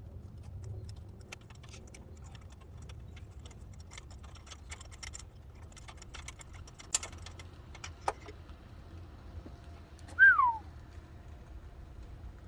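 Light metallic clinks and clicks of hand tools and engine parts being handled, with two sharper clicks past the middle. Near the end, a brief high whine falling in pitch, the loudest sound.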